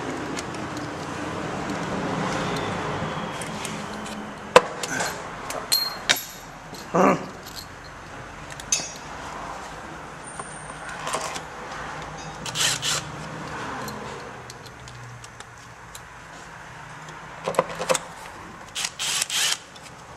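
Scattered metallic clinks and clanks of hand tools and bolts during the refitting of a transmission valve body under a truck, over steady workshop background noise, with a cluster of quick clanks near the end.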